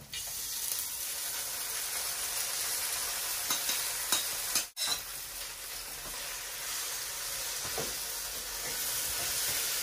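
Mutton curry sizzling as it is spooned onto rice frying in oil in a pot on a gas hob: a steady hiss with a few soft knocks of the spoon, broken by a brief gap about halfway through.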